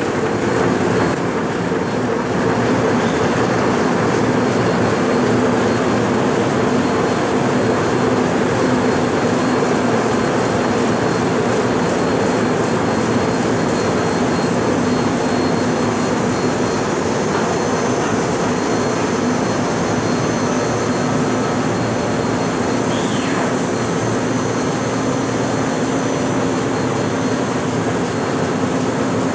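Six-colour MAN Roland 306 sheet-fed offset printing press running, a loud, even mechanical noise with a high hiss over it.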